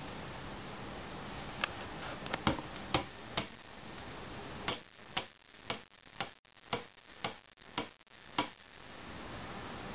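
Claw hammer tapping on the top end of a melamine-faced bed panel: a few scattered light knocks, then about halfway through a quick run of knocks, roughly three a second, lasting about four seconds.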